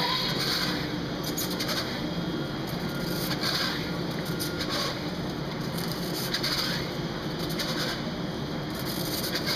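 Orbital stretch wrapper running as it winds stretch film around a palletised load: a steady machine hum, with a hissy rustle recurring every second or two.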